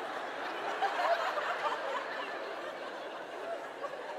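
Audience laughing and chuckling, many voices at once, loudest about a second in and then easing off.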